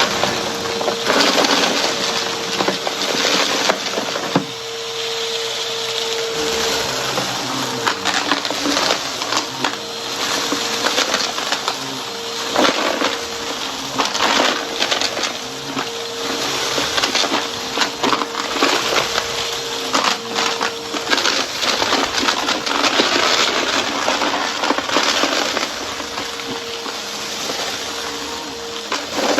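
Upright vacuum cleaner running with a steady motor whine while its brushroll sucks up crunchy dry debris from a rug, giving a dense run of rapid crackles and crunches.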